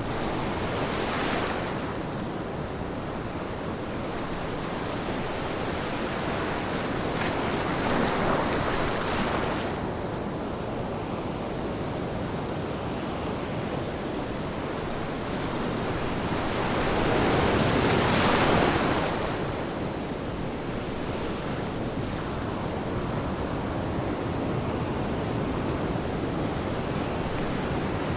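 Ocean waves breaking on a beach: a steady wash of surf that swells three times as waves break, near the start, about a third of the way in, and strongest about two-thirds of the way through.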